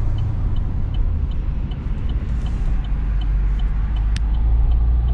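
Chevy SS's 6.2-litre LS3 V8 and road noise heard from inside the cabin while pulling out in first gear, the engine note dropping about a second in. A light, even ticking runs along at about two to three ticks a second, with one sharp click about four seconds in.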